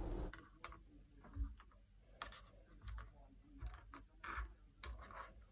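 Faint, irregular light clicks and taps, about seven over several seconds, as red wires and small plastic cable connectors are handled on a board.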